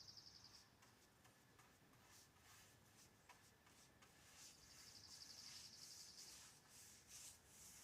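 Near silence: faint room tone, with a faint high-pitched rapid trill at the start and again for about three seconds near the end.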